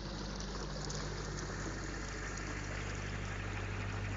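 Canal narrowboat's diesel engine running steadily as the boat passes close by, a low even hum, over the rushing wash of water stirred up by its propeller.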